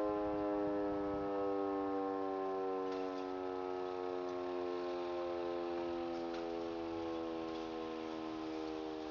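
E57 electromechanical siren winding down: its tone slowly falls in pitch and fades as the rotor coasts to a stop after the motor is switched off. A few faint ticks are heard from about three seconds in.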